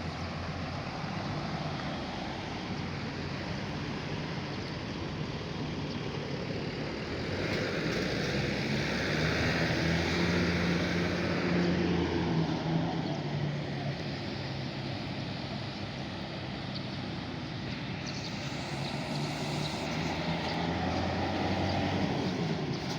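Diesel engine of a large intercity bus running, with a steady low engine note that swells louder for several seconds in the middle and again near the end as the bus moves off.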